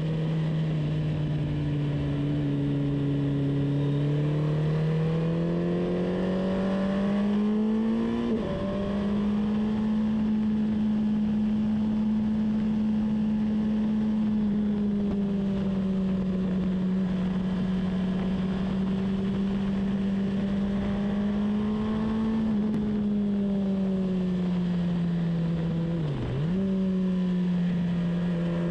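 Vehicle engine heard onboard at speed on a race track. The engine note climbs under acceleration, breaks briefly at a gear change about eight seconds in, then holds steady for a long stretch. Near the end it eases off, with another brief break before settling at a lower pitch.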